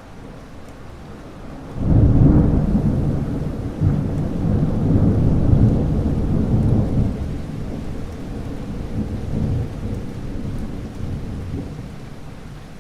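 Thunderstorm: a loud clap of thunder breaks about two seconds in and rolls on as a deep rumble with a second surge, slowly fading, over steady rain.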